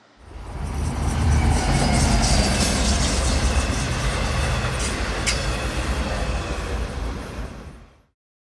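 New York City subway train running: a steady rumble and rattle that builds in the first second, with a sharp click about five seconds in. It fades out at about eight seconds.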